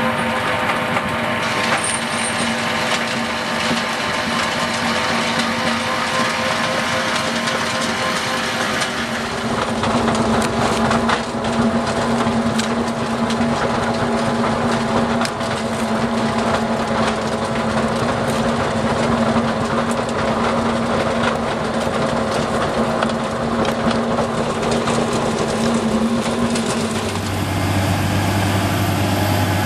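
Tractor-driven FAE stone crusher running steadily under load, its engine and rotor holding a constant pitch, with frequent knocks and rattles of gravel being crushed. Near the end a motor grader's deeper engine drone takes over.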